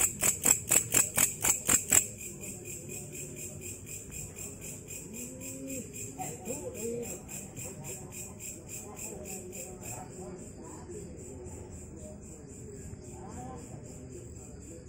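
Katydid (belalang kecek) calling at night: a rhythmic chirping of about five pulses a second, loud for the first two seconds, then carrying on much fainter. About ten seconds in it evens out into a steady high buzz.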